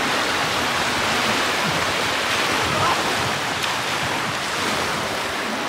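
Small waves washing in over the sandy shallows at the water's edge: a steady rushing of surf.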